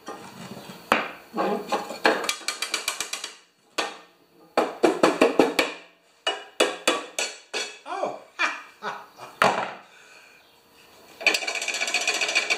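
Ball-peen hammer tapping on a lawn mower's deck and underside in quick runs of metal knocks, several taps a second, as a check for a rattle. Near the end a rapid rattle as the cutting blade is wobbled by hand: the blade is loose.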